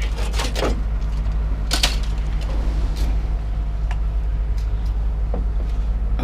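An engine running steadily with a low rumble, and a few scattered metal knocks and clanks over it.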